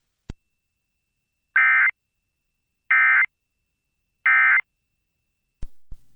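Emergency Alert System end-of-message signal: three short bursts of SAME digital data tones, about 1.3 s apart, marking the end of the alert. A single click comes just after the start and another near the end.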